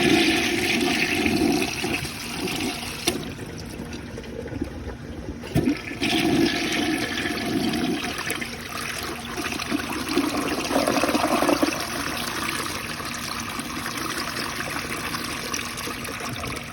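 1965 Rheem Claymore toilet flushing: water rushes through the bowl and drains, then settles into a steadier run of water. The flapper closes a little too soon.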